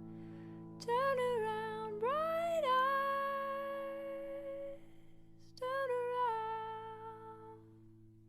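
Slow ballad music: a female voice sings wordless, hummed phrases over a sustained low chord. The phrases come in about a second in, again a second later, and once more past halfway, each trailing off softly.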